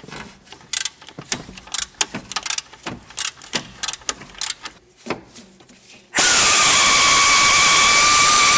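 Irregular metallic clicks and knocks of a tool being fitted to an alternator mounting bolt. About six seconds in, a power tool starts suddenly and runs loud and steady with a high whine, turning the bolt.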